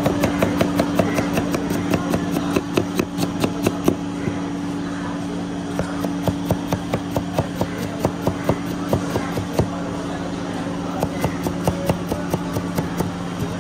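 Large kitchen knife chopping onion on a wooden chopping block in a quick run of sharp strikes. A steady low hum sits underneath.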